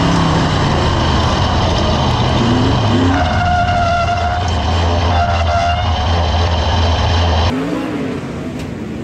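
Sprint car's V8 engine at full throttle heard from the cockpit, its pitch rising and falling as it runs a dirt-track lap in traffic. About seven and a half seconds in, it cuts off suddenly to quieter, more distant race-car engine sound.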